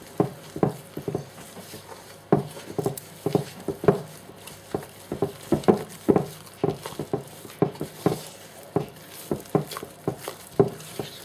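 Spatula folding a thick, crumbly lemon cake mixture in a mixing bowl: irregular soft knocks and scrapes, two or three a second, as it works through the mix and against the bowl.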